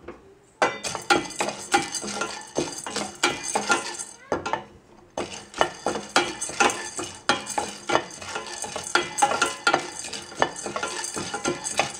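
Fried gram dal (roasted split chickpeas) being dry-roasted in a stainless steel pan, stirred with a wooden spatula: a dense clatter of hard little grains rattling and skittering on the steel, with spatula scrapes. The stirring pauses for about a second around four seconds in, then carries on.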